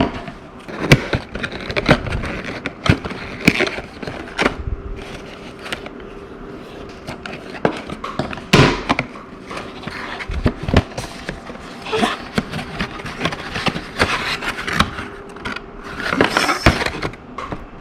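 A small cardboard toy box being handled and opened by hand: scattered taps, clicks and knocks of cardboard and plastic, with a longer rustle near the end.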